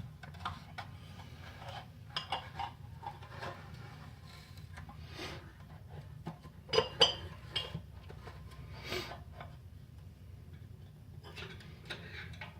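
Metal U-bolt clinking and scraping against the bird feeder as it is pushed through the mounting holes: a string of irregular clicks and knocks, loudest as a pair about seven seconds in.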